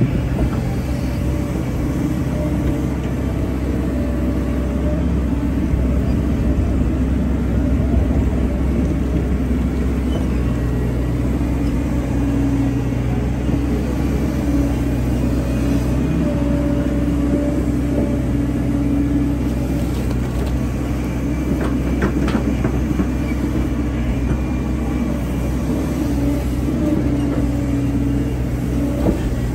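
Hyundai hydraulic excavator's diesel engine running steadily under working load. Its note shifts slightly about ten seconds in, and a few faint knocks come around twenty seconds in.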